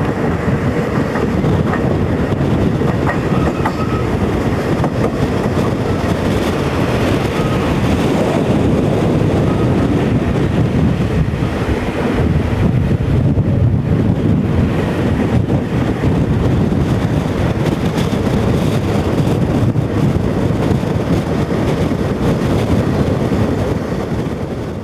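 Passenger train running at speed, heard from an open vestibule between cars: a steady rumble of wheels on the rails with clickety-clack.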